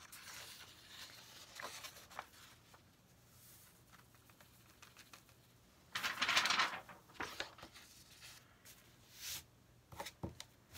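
Sheets of paper rustling and sliding as they are handled, with one louder rustle lasting about a second around six seconds in and scattered small taps and scrapes.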